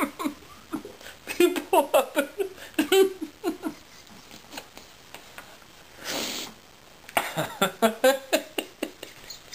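A man laughing helplessly in quick bursts of giggling, broken by a long breathy wheeze about six seconds in, then another run of laughter.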